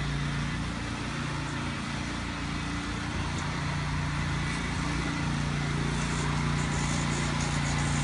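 Riding lawn mower's V-twin engine running steadily at an even speed.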